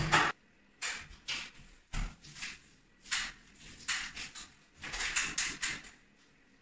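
Facade roller on a telescopic pole rolling thinned joint compound over drywall tape joints on a ceiling, a second coat over the tape. It makes a series of short, irregular wet rolling strokes with brief pauses between them.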